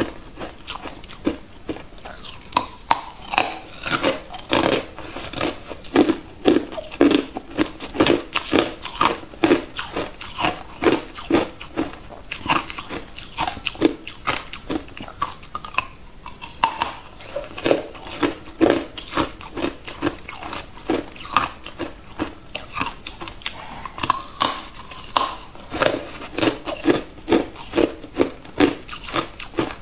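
Thin sheets of ice being bitten and chewed: a steady run of sharp cracks and crunches, several a second, with a few short pauses between bites.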